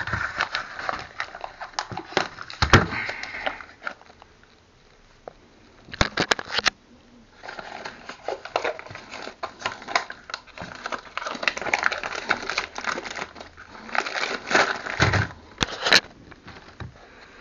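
Plastic packaging bag crinkling and rustling as it is opened and handled, with scattered sharp clicks. It goes quiet for a few seconds about a quarter of the way in, then crinkles steadily again.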